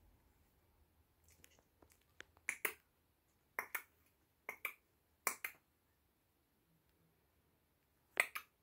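Short sharp clicks in quick pairs made by a person near the microphone: four pairs about a second apart, then one more pair near the end.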